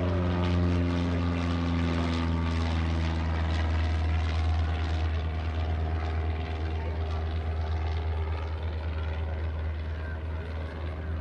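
Single-engine Cessna trainer's piston engine and propeller droning steadily as it flies past. Its clear engine tone thins into an even drone after a few seconds and eases slightly near the end as it moves away.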